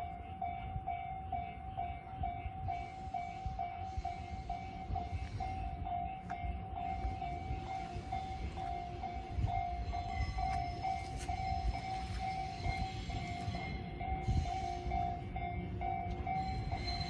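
Japanese level-crossing warning bell ringing in a fast, even repeating pattern while a JR 415 series electric train rumbles by on the tracks.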